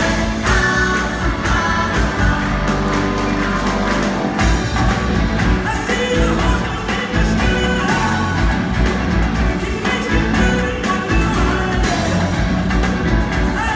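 A rock band playing live: lead vocals over electric guitar, drums, piano and keyboards, heard from the audience.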